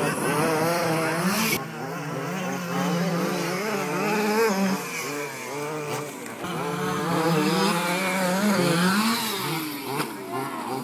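Small two-stroke petrol engines of 1/5-scale RC off-road cars revving up and down over and over, their pitch rising and falling as the cars accelerate, brake and jump around the track.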